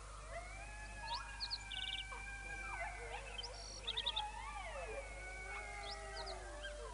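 Animal calls: several long, overlapping cries that glide slowly up and down in pitch, with short runs of quick, high chirps above them.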